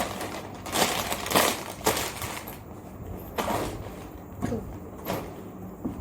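Rustling and handling noises of the kit's items being packed away, a quick run of strokes in the first two seconds and a few scattered ones after.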